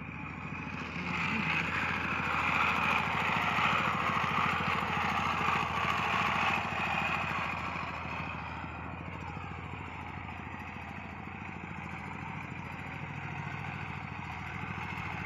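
Power tiller (two-wheel tractor) engine running steadily as it ploughs the soil. It is louder for the first half while the machine passes close, then quieter as it moves off across the field.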